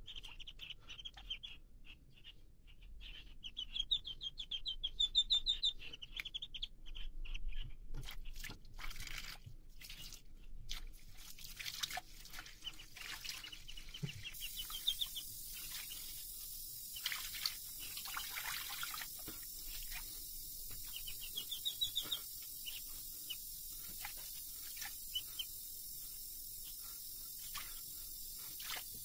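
Domestic duckling peeping in quick runs of short high calls while splashing in shallow water in a sink. From about halfway, a thin stream from the kitchen tap trickles steadily into the water under scattered splashes, with the duckling still peeping now and then.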